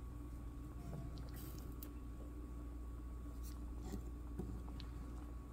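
Stew simmering in a cast-iron skillet, with scattered soft wet pops and clicks from the bubbling and a spatula moving through it, over a steady low hum.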